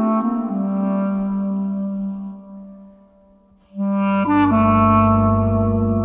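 Slow, calm instrumental background music carried by a wind-instrument melody. It settles on a long low note, fades almost away about three seconds in, then comes back with a sustained deep bass tone beneath held notes.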